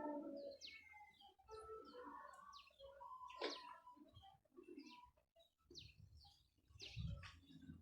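Faint bird chirps: short, quick down-sweeping notes scattered every second or so, with a few softer held notes in between.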